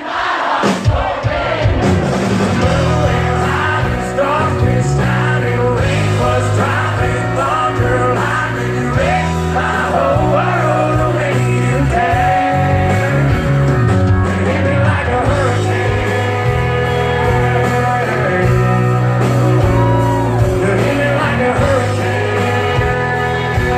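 Live country band playing with singing, loud and steady. Scattered drum hits and crowd noise open it, and the full band with bass comes in about two seconds in.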